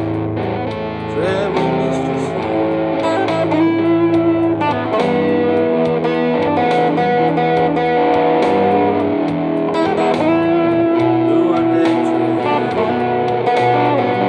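Amplified Telecaster-style electric guitar playing an instrumental blues passage, picked single notes and chords with string bends.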